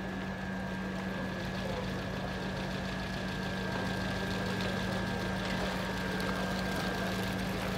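A steady low machine hum, like an engine running at idle, with a faint thin high whine above it.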